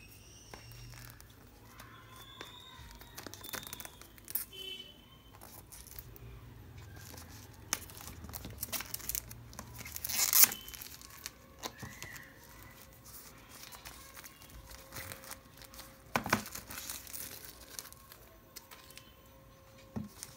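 Plastic packaging on a small earbuds retail box crinkling and tearing as it is handled and pulled open by hand, with scattered clicks and crackles; the loudest burst of crinkling comes about ten seconds in.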